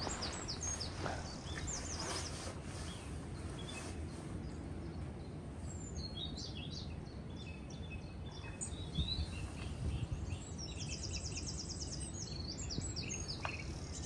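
Small songbirds chirping and calling, with fast runs of repeated high notes near the start and again about two-thirds of the way through, over a steady low background rumble.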